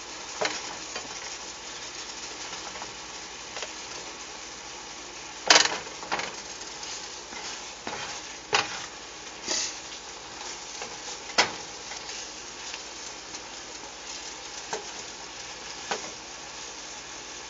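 Asparagus sautéing in a pan of thickened garlic and soy sauce, a steady sizzle, with a utensil stirring and knocking against the pan every second or few. The loudest knock comes about five and a half seconds in.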